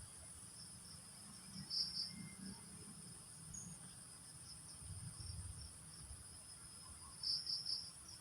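Insect chorus: a steady high-pitched trill, with louder chirps about two seconds in and a quick run of them near the end, over a faint low rumble.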